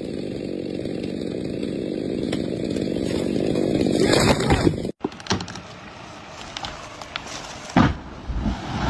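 Chainsaw running steadily, with a louder burst about four seconds in. The sound cuts off abruptly about five seconds in and gives way to quieter noise with scattered knocks and a sharp thump near the end.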